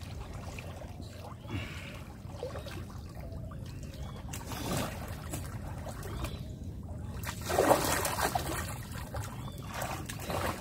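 Water splashing and sloshing as a man wades through shallow water and scoops at it with his hands. The splashes are louder about halfway through and again around three-quarters of the way in.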